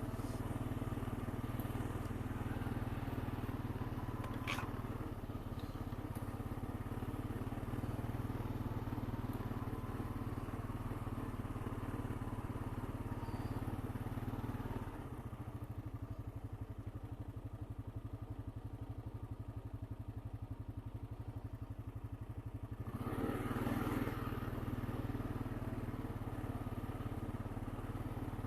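Honda Rancher 420 ATV's single-cylinder engine running steadily under way. About halfway through it drops to a quieter, slower beat, then picks up again with a short surge near the end.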